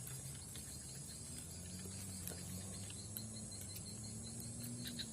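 Steady high-pitched chirring of crickets or other insects, with a faint low hum underneath.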